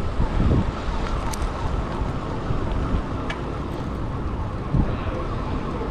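Steady wind-like rumbling noise on a moving microphone, strongest in the low end, with a couple of faint clicks.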